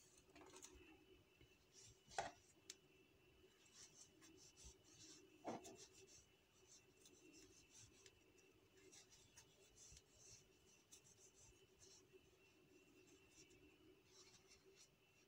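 Near silence with faint rustling and scraping of 3 mm macrame cord being worked with a crochet hook, pulled through double crochet stitches, with two soft taps, over a faint steady hum.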